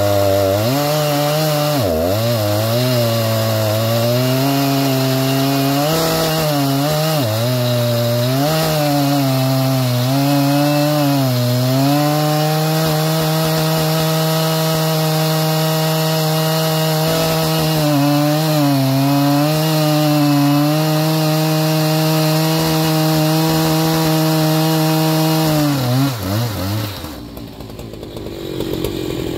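A Husqvarna 3120XP, a large-displacement two-stroke chainsaw, runs at full throttle deep in a large log. Its engine note sags and recovers repeatedly under the load of the cut, then holds steady. Near the end the saw cuts through and the engine note falls away sharply.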